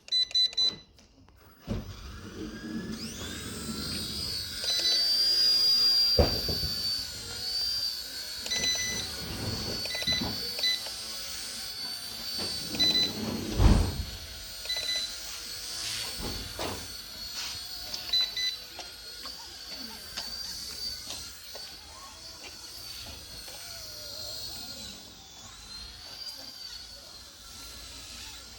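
Twister Ninja 250 RC helicopter's small electric motor and rotors whining: the whine rises about three seconds in as it spins up, then holds high and wavering as it flies. Short electronic beeps from the transmitter's trim buttons sound at the start and several times in the middle, and a few dull thumps cut in, the loudest near the middle.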